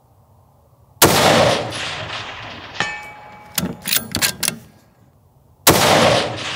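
Two shots from a 6.5 Creedmoor bolt-action rifle, about four and a half seconds apart, each followed by a long echoing tail. About two seconds after the first shot comes a faint ring of the bullet striking the steel target, then a few sharp metallic clicks of the bolt being cycled.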